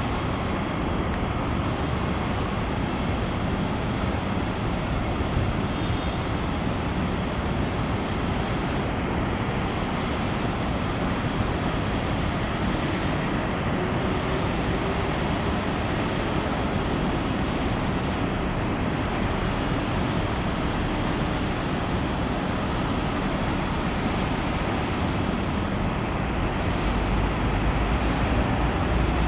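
Steady outdoor background noise: a low rumble and hiss with no single event standing out.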